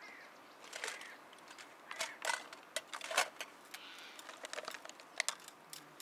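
Irregular light clicks and clatters of things being handled, a dozen or so, the loudest about two and three seconds in.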